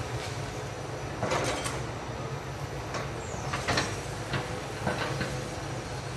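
Hitachi EX200 hydraulic excavator working at a distance: a steady low diesel engine drone with irregular clanks and creaks, and a brief high squeal about three and a half seconds in.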